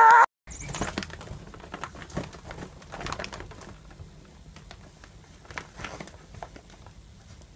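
A short, loud animal cry, cut off right at the start. Then a cat climbs a hanging fabric shoe organizer: irregular crinkling, scratching and small taps that grow fainter toward the end.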